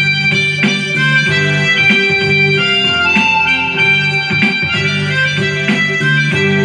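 Instrumental music from a Korg Pa-series arranger keyboard: held melody notes over the steady beat of its built-in rhythm accompaniment.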